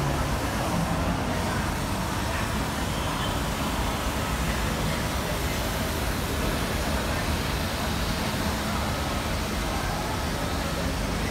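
Steady ambient noise of an airport terminal: an even, unbroken rush with no single sound standing out.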